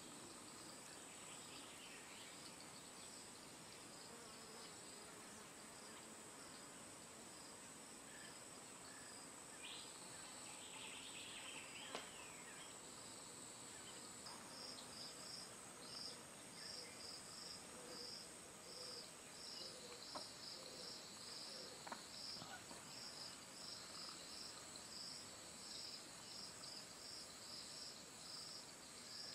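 Insects calling: a steady high-pitched drone, joined about halfway through by a second insect's regular pulsing chirp.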